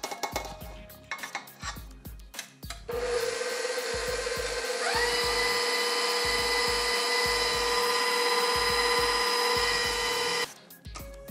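KitchenAid bowl-lift stand mixer running with its wire whisk in cake batter: the motor starts about three seconds in with a steady hum, is switched up to a higher speed about two seconds later with a quick rise in pitch, and cuts off suddenly near the end. Background music with a steady beat plays throughout.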